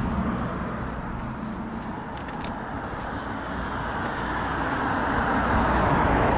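Road traffic noise: a steady rush of passing vehicles that eases off a little and then swells again toward the end, with a few faint light clicks along the way.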